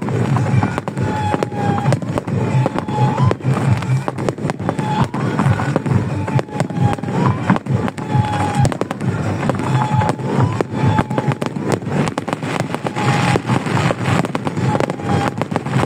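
Fireworks display going off in rapid, continuous bangs and crackles without a break.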